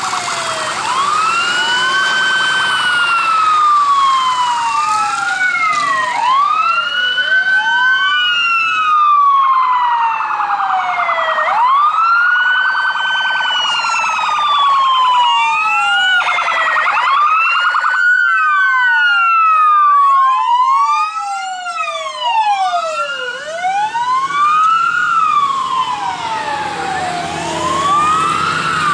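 Several police escort sirens wailing together, each rising and falling over a few seconds and overlapping out of step with the others. They lead a motorcycle procession.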